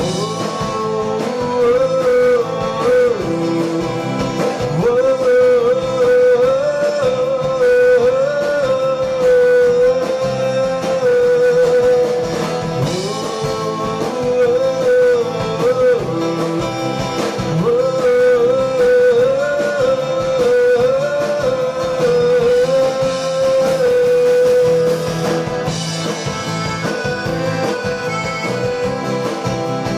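Live folk band music: strummed acoustic guitar and accordion, with a wavering, sustained lead melody bending in pitch above them.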